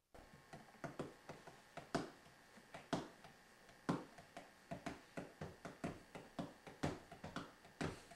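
Irregular light taps and knocks of hands on the barbecue sauce jar and the countertop, one or two louder knocks a second among quieter clicks.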